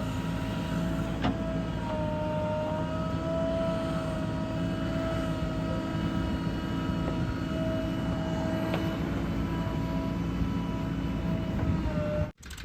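Heavy diesel machinery running steadily: a low engine rumble with a high, slightly wavering whine over it. The sound cuts off abruptly near the end.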